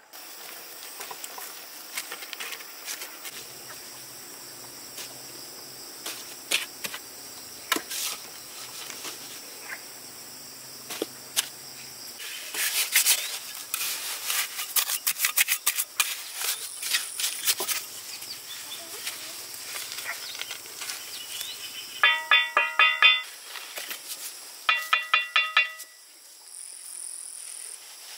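Steady high insect chirring, with many scattered clicks that are densest in the middle. Near the end come short runs of rapid pulsed calls, a few pulses a second, from an animal.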